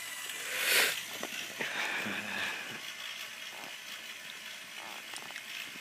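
Small electric motor of a Lego Vestas wind turbine model whirring steadily as it turns the rotor blades, with a brief rustle about a second in.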